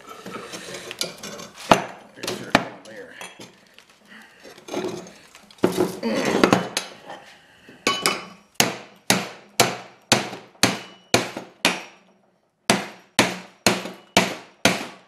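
Clatter of a small steel bench vise being adjusted and tightened, then a hand hammer striking the upright leg of a brazed aluminium T-joint clamped in the vise. The blows come about two a second in a run from about eight seconds in, pause briefly, then start again. The aluminium leg bends under the blows while the brazed joint holds.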